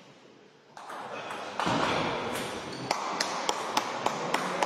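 Table tennis ball clicks. From about three seconds in, a celluloid ping-pong ball is bounced in a quick, even series of sharp pings, about three or four a second, over voices and hall noise that start partway through.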